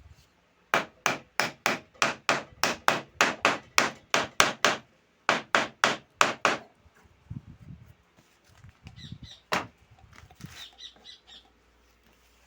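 Hammer blows on wood, about three a second in two quick runs with a short break, then one lone blow a few seconds later.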